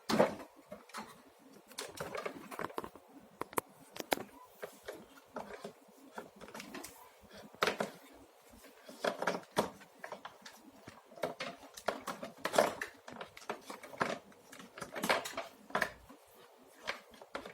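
Hands handling a vacuum cleaner's plastic cord-reel parts and power cord: irregular clicks, taps and rattles.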